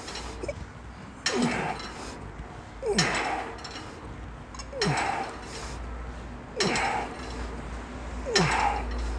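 Lat pulldown machine's weight-stack plates clinking once per repetition, five times at an even pace of about one every 1.8 seconds. Each clink comes right after a short falling tone.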